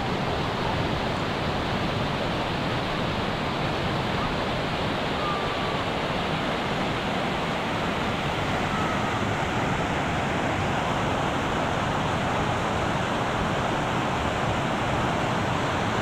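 Mountain stream rushing over rocks, a steady, unbroken rush of water.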